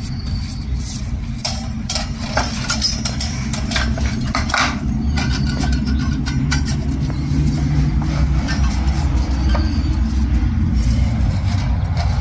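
Light metal clicks and clinks as clutch plates and a retaining ring are handled and seated by hand in an aluminium CVT transmission case, scattered irregularly. Under them runs a steady low mechanical rumble, the loudest sound throughout.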